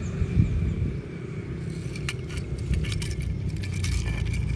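Metal diecast toy cars clinking and clicking against each other in a quick cluster of small taps about halfway through, over a steady low rumble.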